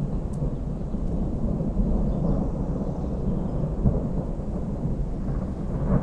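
Rolling thunder rumbling continuously at a low pitch, swelling about two seconds in and again near the end.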